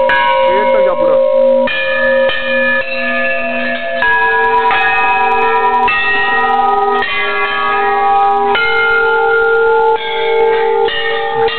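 Hanging metal temple bells rung by hand one after another, about ten strikes at a rate of roughly one a second. Each strike rings on with several steady tones that overlap the next.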